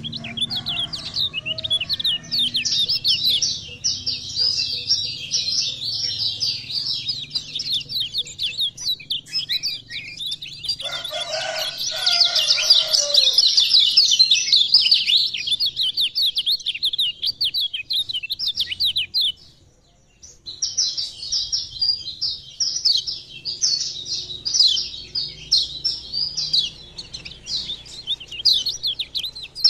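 Kecial kuning white-eye singing a fast, unbroken high twitter of rapid notes, pausing for about a second some twenty seconds in.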